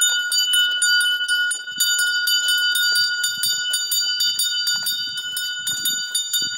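A bell rung rapidly and without pause, quick repeated strokes over several steady ringing tones: a school bell calling the pupils in to class.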